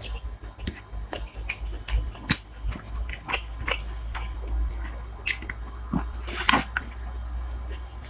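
A person eating close to the microphone: chewing and biting with irregular wet clicks, smacks and crunches, the sharpest about two seconds in and again near six and a half seconds.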